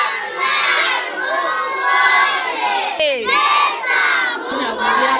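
A crowd of children shouting and cheering together, many high voices at once, with a brief break about three seconds in.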